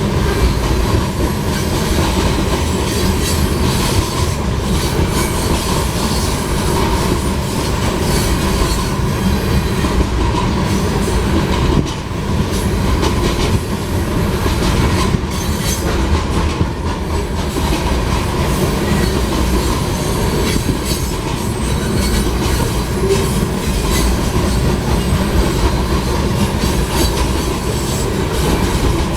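A loaded grain train's cars rolling past steadily: a continuous rumble of wheels on rail with many small clicks and a faint high ringing tone.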